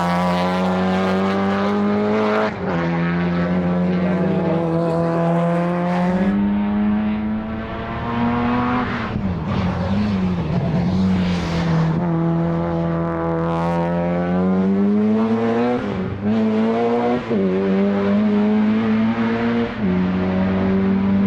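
A time-attack race car's engine under hard acceleration, its pitch climbing steadily and dropping back sharply at each gear change, several times over.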